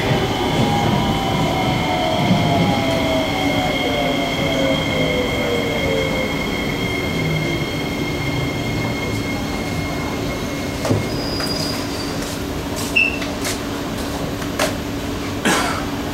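Kawasaki-CRRC Sifang C151C train's IGBT-VVVF traction motors whining down in pitch as the train brakes into a station, over the rumble of the car. A steady high whine cuts off about ten seconds in as the train comes to a stop. A few short clicks and knocks follow from the stopped train.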